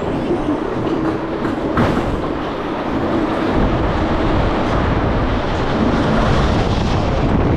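Intamin spinning roller coaster car running along its track, a steady rumble and clatter of wheels on steel rail heard from the seat, with a low hum in the first few seconds.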